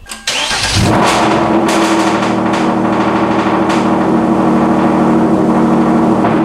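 Hyundai Genesis Coupe's 3.8-litre V6 starting about half a second in and settling into a steady idle, on its first start after ported and polished intake manifolds and throttle body were fitted.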